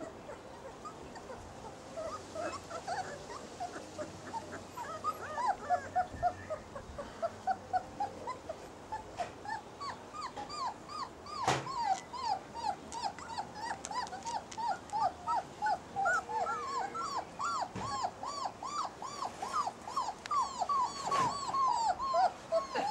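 Young basset hound puppies whimpering and squeaking in a string of short, high, rising-and-falling cries, a few a second. The cries are sparse at first and come thick and fast from about halfway, with a couple of sharp knocks among them.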